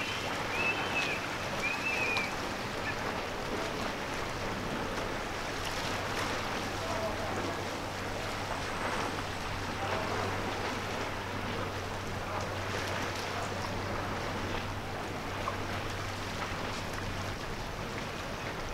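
Steady wind and water noise with a low motor hum, typical of a boat running under engine, which stops near the end. A few short high chirps in the first couple of seconds.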